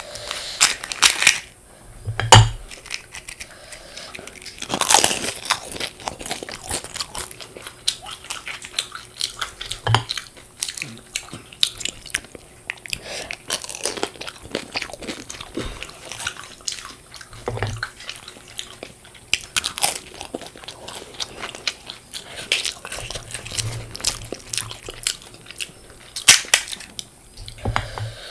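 Close-up eating of panipuri: crisp fried puri shells crunched between the teeth and chewed, a dense run of crackles with several louder crunches. A few low thumps come in between.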